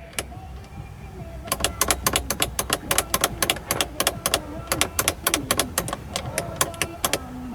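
Irregular scratching and crackling clicks, several a second, from the Mercedes 300E's factory radio speakers, starting about a second and a half in. It is an audio-system fault: it sounds whenever the key is on and the radio is off, and goes away with the radio on.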